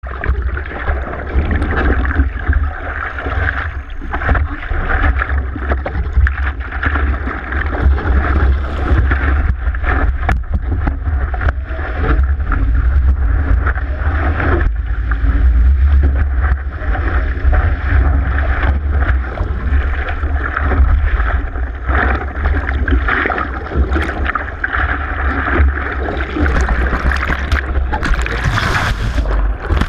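Seawater rushing and splashing against a surfboard as it is paddled and ridden through a wave, picked up by a camera on the board's nose right at the waterline, with a steady deep rumble under choppy splashes. Near the end the splashing turns brighter and hissier as spray breaks over the board.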